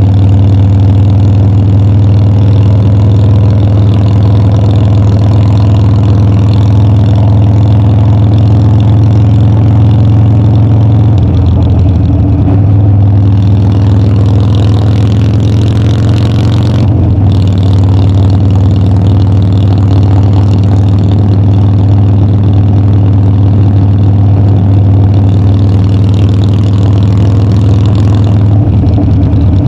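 Harley-Davidson Dyna's air-cooled V-twin engine running steadily under way, loud and low-pitched. The engine note changes briefly about 11 and 17 seconds in, then settles again.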